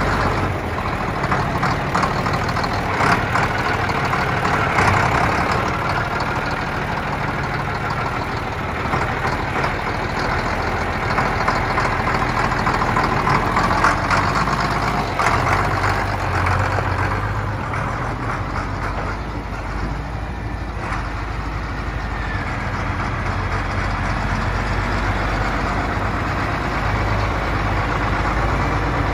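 Case IH 2290 tractor's turbocharged six-cylinder diesel engine idling steadily.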